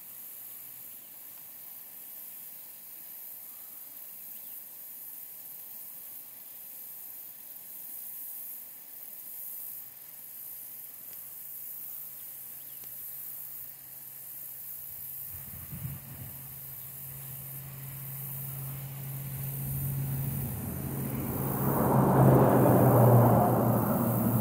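Faint steady outdoor hiss, then a low steady engine hum that grows louder in the last part. A loud rushing noise swells over it near the end.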